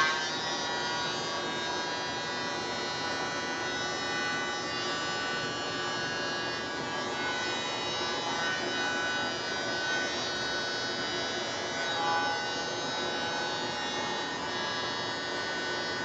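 Small electric air blower running steadily with a high whine, used to blow wet acrylic pour paint across the canvas.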